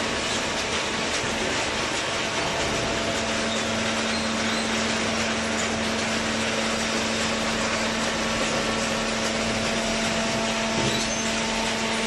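Hydraulic baler's electric motor and hydraulic pump running with a steady mechanical noise and a steady hum; a hum tone comes in about two and a half seconds in and holds.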